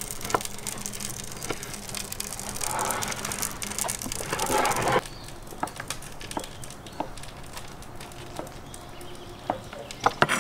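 Chef's knife chopping smoked sausage on a wooden cutting board, with rapid taps of the blade on the wood. About halfway through it gives way to occasional single knocks on the board.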